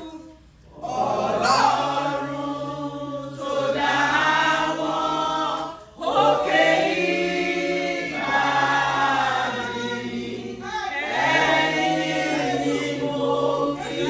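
A group of women singing a gospel praise song together without instruments, in sung phrases a few seconds long with short breaks between them.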